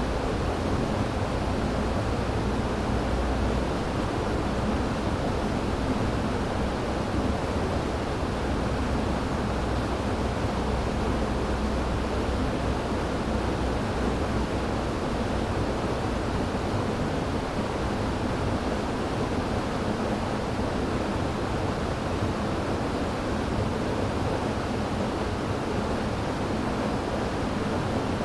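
River water flowing steadily, a constant deep rush with no breaks or changes.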